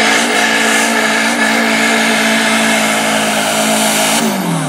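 Pulling tractor's engine running hard at a steady high pitch as it drags the weight-transfer sled. About four seconds in, the engine note falls away as it comes off full power.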